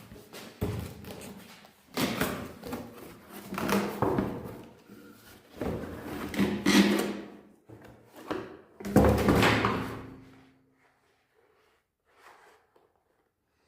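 Handling noises: a series of knocks, thuds and rustling, in bursts about a second long, as objects are moved and set down, dying away about ten seconds in.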